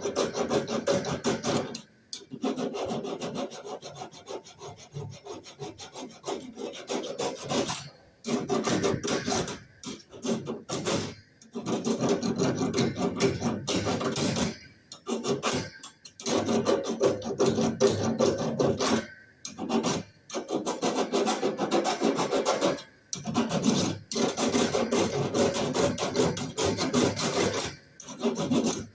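Copper refrigeration tubing being scraped by hand in quick, rough strokes, in runs of one to three seconds with short pauses between, as the tube ends are prepared for brazing to a new compressor.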